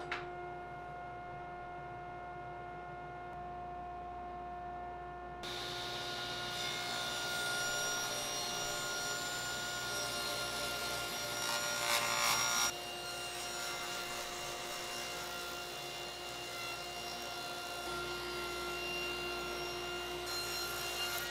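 Table saw running, its blade ripping a board fed through with a push block. The motor hums alone at first; the cutting noise begins about five seconds in and grows loudest for a moment about halfway through.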